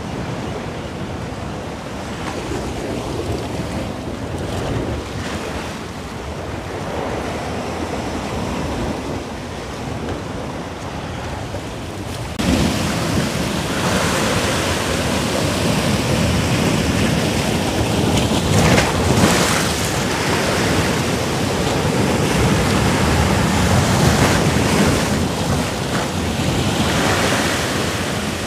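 Sea surf washing on rocks with wind buffeting the microphone, a steady rushing noise that gets suddenly louder and fuller about twelve seconds in.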